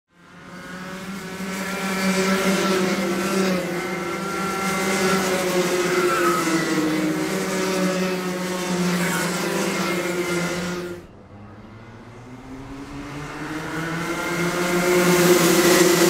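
A pack of Rotax 125cc two-stroke kart engines running at racing revs, several engines overlapping with wavering pitches as the karts come down the straight. The sound cuts off abruptly about eleven seconds in, then a fresh pack of engines builds up, growing louder toward the end.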